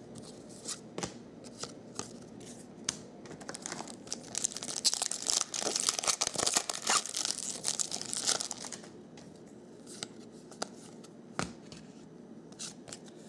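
A foil trading-card pack being torn open and crinkled, with a few seconds of dense crackling in the middle. Light clicks of cards being handled come before and after it.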